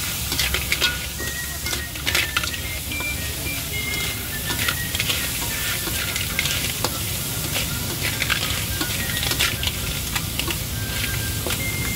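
Leafy greens and shellfish sizzling in a hot steel wok while a metal spatula stirs and tosses them, scraping and clinking against the pan many times.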